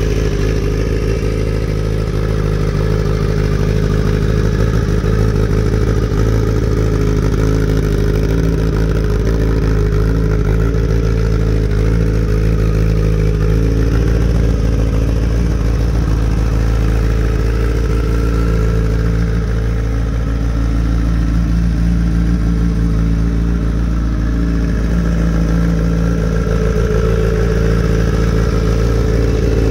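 Kawasaki ZX-10R's 998 cc inline-four engine idling steadily.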